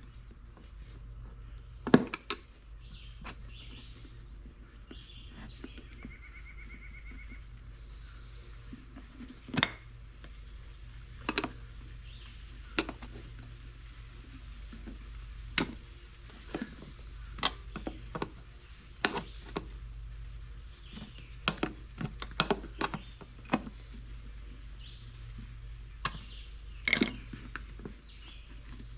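Irregular clicks and knocks of hand work as a small wheelbarrow tire and inner tube are worked onto the rim, a sharp knock about 2 seconds in being the loudest, over a steady low hum.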